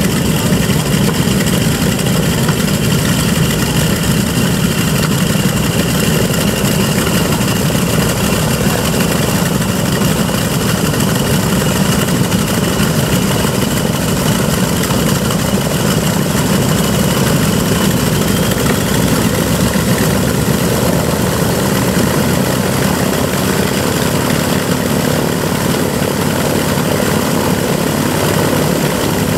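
The B-25 Mitchell's two Wright R-2600 radial engines idling steadily, propellers turning at low power on the ground.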